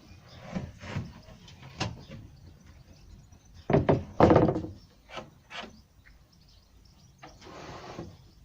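18mm plywood panels being handled and turned over: scattered wooden knocks and scrapes, with the loudest cluster of knocks around the middle and a short scrape near the end.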